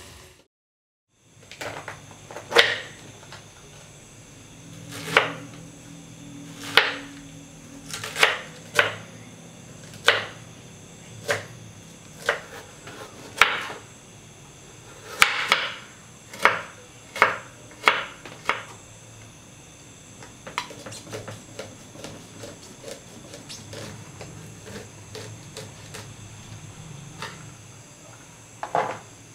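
Kitchen knife cutting through carrot onto a wooden cutting board: a run of separate sharp chops, one every second or so. Later come quicker, lighter cuts, several a second.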